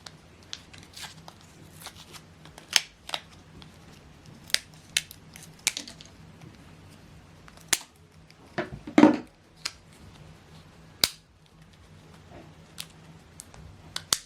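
Sharp plastic clicks and snaps from hands working open a CR2032 coin-cell battery's packaging, a dozen or so spread irregularly, the loudest about nine seconds in.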